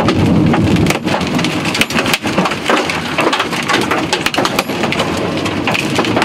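Hailstones pelting the car's windshield and roof, heard from inside the car: a dense, irregular clatter of sharp knocks over a steady hiss of rain.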